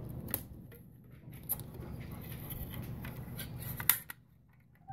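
Kitchen knife scraping and cutting at a plastic Airheads candy wrapper, giving a few sharp crinkling clicks.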